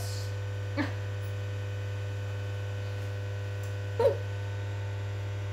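Steady low electrical hum, with two brief short sounds breaking in about a second in and about four seconds in, the second one louder.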